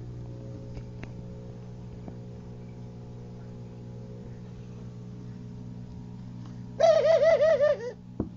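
Pigeon cooing: a short run of quick, rising-and-falling coo notes, about a second long, comes about seven seconds in over a steady low hum. A few faint clicks follow near the end.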